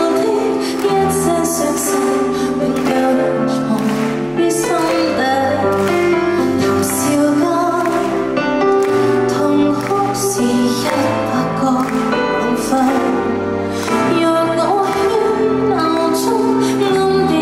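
A woman singing a slow, tender ballad live into a microphone over musical accompaniment.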